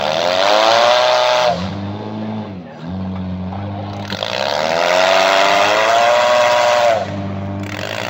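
Demolition derby car engines: one runs steadily underneath while another is revved hard three times, each time rising in pitch and holding for a second or two along with a hiss of noise.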